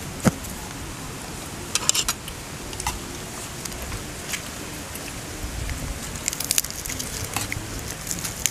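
Scattered clicks and rustles of people eating at a table: spoons tapping against bowls and leafy greens being handled and folded. A sharp click about a third of a second in is the loudest, with small clusters of clicks about two seconds in and again past the middle.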